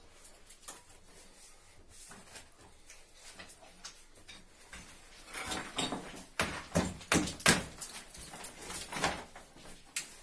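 White plastic heating pipes being handled and pressed into a channel in the wall: a few seconds of faint rustling, then, about halfway, a quick run of sharp plastic clacks and knocks against the wall.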